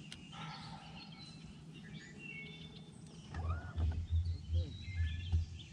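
Birds chirping and calling, short high notes scattered throughout, over a faint steady low hum. From a bit past halfway, for about two seconds, a series of low rumbling thumps is the loudest sound.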